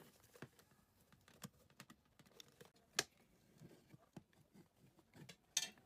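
Sparse, faint clicks and taps of a hair dryer's plastic housing being handled and pulled apart, with one sharper click about three seconds in and a few more near the end.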